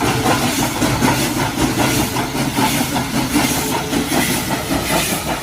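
Train running on rails, a steady rhythmic clickety-clack of wheels over the track.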